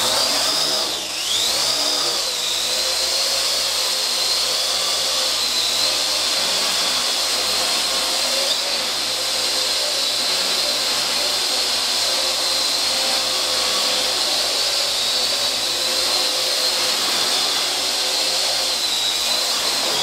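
Parrot AR.Drone quadcopter hovering, its four electric motors and propellers making a steady high whine. The pitch dips and climbs again about a second in.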